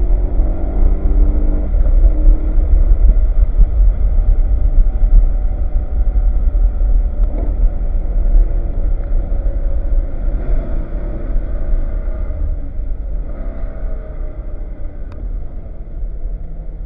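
BMW E92 M3's V8 engine running at speed on track, its pitch rising and falling through gear changes and throttle, over a heavy low rumble. It eases off near the end.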